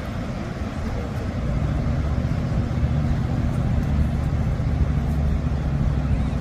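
Ocean surf breaking and washing ashore as a steady low rumble, growing louder about a second and a half in.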